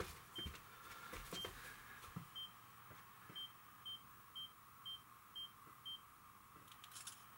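A camera's self-timer beeping in short, high beeps, about once a second and then twice a second for the last six, counting down to the shot; a brief click follows near the end.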